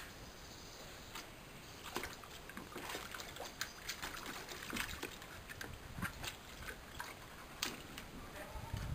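Water splashing and sloshing in a plastic paddling pool as a dog wades in it and pushes a boomerball about, with short irregular splashes throughout.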